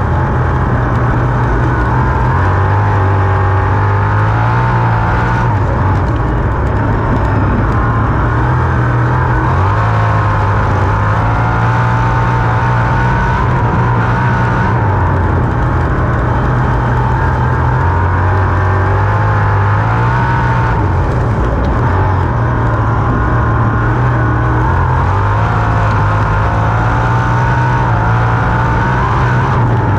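Winged sprint car's V8 engine heard from the cockpit at racing speed, its pitch rising and falling every few seconds as the throttle is lifted and reapplied around the track.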